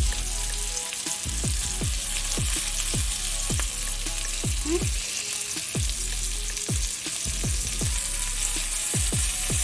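Chicken pieces frying in butter and olive oil in a cast iron skillet, a steady sizzle. A beat of background music runs underneath.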